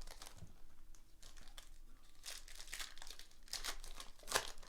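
Foil trading-card pack wrappers crinkling and tearing as packs are opened by hand, in several short rustles with the loudest near the end.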